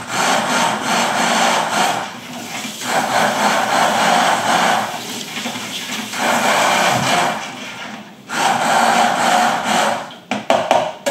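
Electric blender puréeing a cooked tomato sauce with whole peppercorns and cloves in it. It runs in about four bursts of a couple of seconds with short pauses between them, then gives a few quick pulses near the end.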